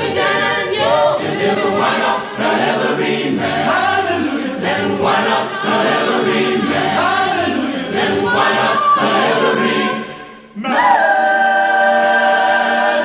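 Choir singing, a short break about ten seconds in, then one long held chord.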